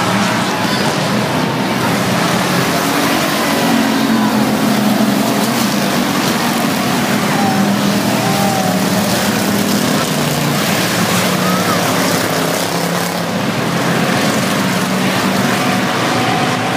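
A field of dirt-track race cars running at speed around the oval, their engines blending into one steady drone that rises and falls slightly as they circle.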